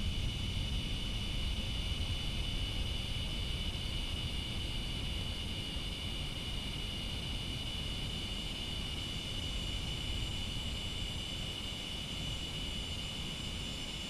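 Cicadas singing in a loud, continuous drone at one steady pitch. Underneath, a passing jet's engines rumble low and slowly fade.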